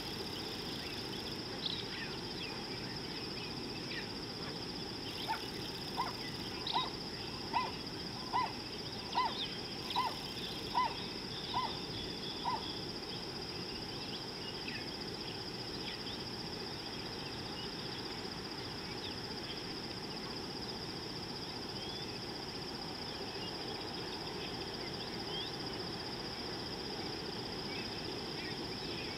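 Steady high insect drone, with a bird calling a series of about ten short, evenly spaced notes, a little under one a second, from about five to twelve seconds in.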